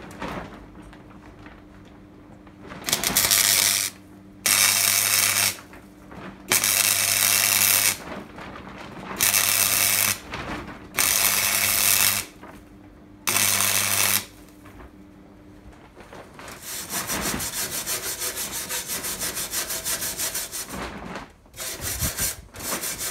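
A MIG welder stitch-welds a steel plate onto a chassis rail in six bursts of about a second each, with a low hum under them. Then come several seconds of steady scraping on the metal, and two more short bursts near the end.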